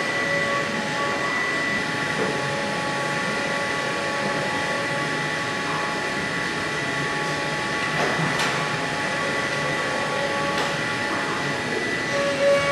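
MillStep PAX6050V2 CNC milling machine running steadily with a whine of several held tones, its spindle-driven end mill cutting a plastic plate and plunging holes at the plate's corners.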